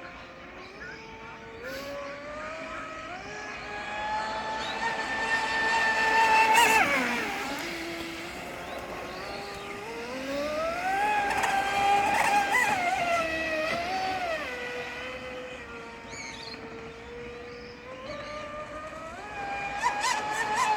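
RC speedboat's brushless motor (a 4070 TP 880 kV on 10S) whining at full throttle, its pitch climbing and falling as the boat speeds up, turns and passes. It is loudest about six and a half seconds in, where the pitch drops sharply as it goes by, and again around twelve seconds in.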